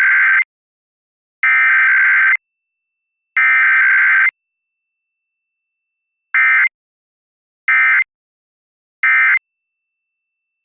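Emergency Alert System SAME data bursts, buzzy digital tones: the end of the first of three header bursts, about a second each, then two more, followed by three short end-of-message bursts. This is the data-only sequence of a Required Weekly Test.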